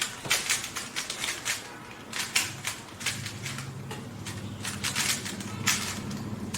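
3x3 Rubik's cube being turned fast during a speed solve: rapid, irregular clicking and clacking of the plastic layers, several turns a second. A low steady hum comes in about two and a half seconds in.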